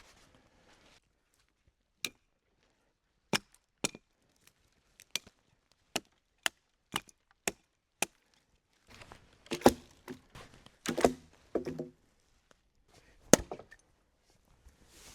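Wood being struck and chopped with a blade: sharp single knocks, coming about every half second for a while, then a rough stretch of cracking and splitting wood, and one last hard strike near the end.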